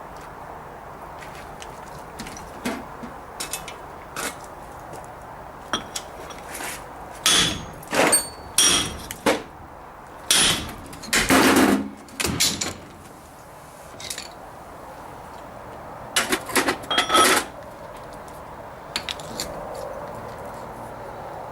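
Hammer blows on a blunt chisel used as a punch against the back of a rear hub taper, trying to shock the hub free while a hydraulic puller holds it under load. Sharp metallic strikes with a ringing tone come in groups: a few light taps, then two flurries of heavy blows in the middle, and another short flurry later.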